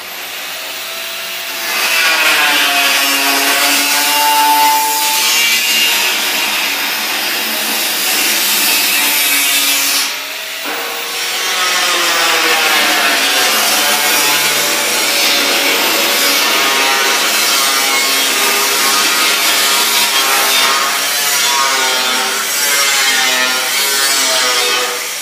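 Power tool grinding stainless steel, its pitch wavering as it is pressed against the metal, with a brief break about ten seconds in.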